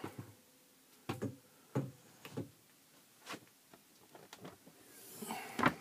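A handful of light knocks and clicks, spaced about half a second to a second apart, as the overhead bunk's ladder is unhooked and handled against the wooden cabinetry, with a short rustle near the end.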